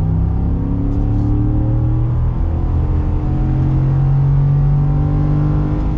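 Ford F-150's V8 accelerating hard under full throttle, heard from inside the cab. The engine note climbs, drops as the 10-speed automatic upshifts about two and a half seconds in, then climbs again.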